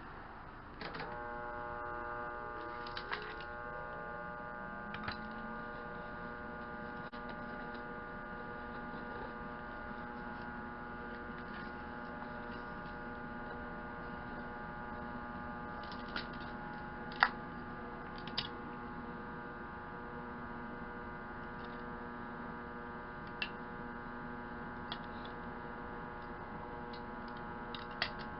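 Steady electrical hum of a machine switched on about a second in, with a motor spinning up to speed over the next few seconds and then running evenly. A few light clicks come through on top.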